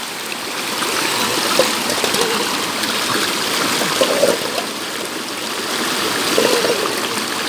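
Shallow stream rushing steadily over rocks and small ledges in low cascades.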